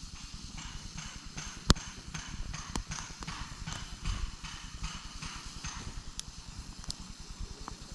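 Campfire wood burning and crackling, with irregular small pops and one loud snap about two seconds in.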